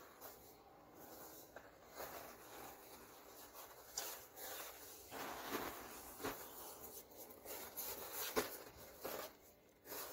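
Handfuls of fine white powder crumbling and falling into a plastic tub: a faint, dry rustle and patter, broken by a few sharp taps against the plastic, the loudest about eight seconds in.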